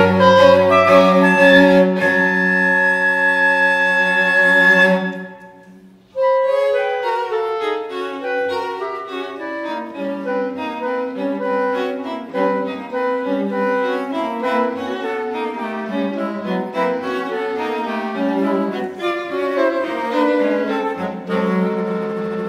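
Chamber quartet of flute, clarinet, violin and cello playing. Held chords fade away about five seconds in, a brief pause follows, then a rapid passage of short, quickly shifting notes, settling back into held notes near the end.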